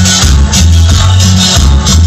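Loud cumbia music played through a large sound system: a heavy pulsing bass line under a steady shaker-and-scrape percussion rhythm.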